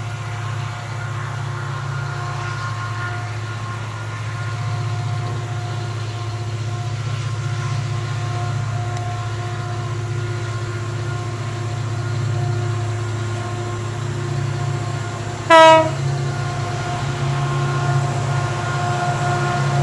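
Double-headed CC 205 diesel-electric locomotives hauling a loaded coal train, their engines running with a steady low drone that slowly grows louder as the train approaches. About three-quarters of the way through, the lead locomotive's air horn gives one short blast.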